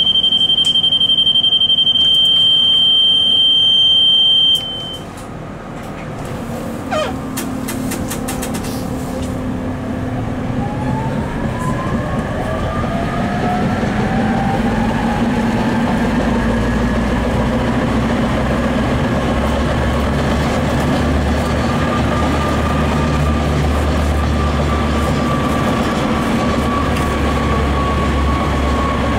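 Inside a Tatra T3 tram: a steady high-pitched electronic warning beep for about four and a half seconds, then a few sharp clunks. From about ten seconds in, the traction motors whine rising in pitch as the tram pulls away, levelling off into a steady whine over the rumble of the wheels on the rails.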